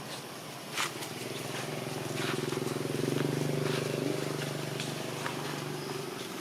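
A steady engine hum that grows louder through the middle and then fades, with a few sharp clicks over it.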